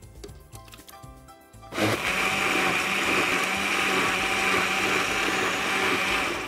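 Electric countertop blender switched on about two seconds in, running steadily with a constant hum as it purées cooked fish and vegetable soup; it cuts off near the end.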